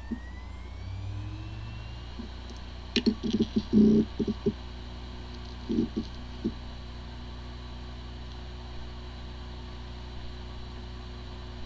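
Hard drive with corrupted disk firmware powering up: the motor spins up with a rising whine, a flurry of knocks comes about three to four seconds in and a few more around six seconds, then it spins on with a steady hum. This is the sound of a drive that spins fine but cannot be accessed by any computer.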